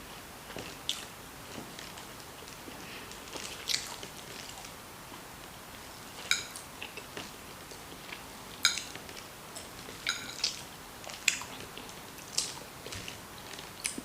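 A person chewing food close to the microphone, with a string of short wet mouth clicks and lip smacks every second or two.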